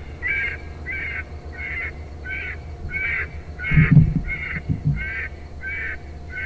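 Electronic predator caller playing Convergent Hunting Solutions' 'Neck Ringer' sound, a recorded ringneck pheasant call that sounds a lot like a jackrabbit. It repeats as short calls about every 0.6 s. Two low bumps come about four seconds in and just before five seconds, the louder at four.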